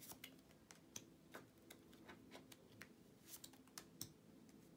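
Near silence with faint, irregular light clicks and ticks, a few a second, over a faint steady hum.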